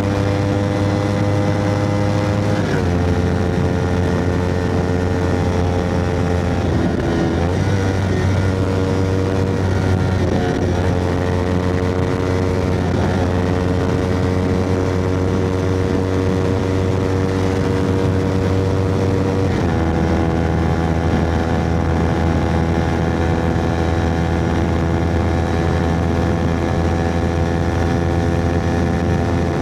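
Kawasaki Ninja 250R parallel-twin engine running through an Akrapovic carbon exhaust, its note held steady for long stretches. The pitch changes suddenly about 3, 7, 10 and 20 seconds in.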